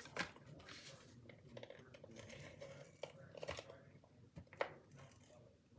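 Faint paper and adhesive handling: a few short crisp rasps and clicks as strips of double-sided adhesive are pulled, torn and pressed onto a card-stock panel.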